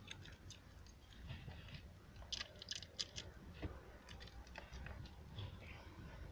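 Brown packing tape being pulled off the roll and wound around two cables, a faint crackling and rustling with a cluster of sharper crackles about halfway through.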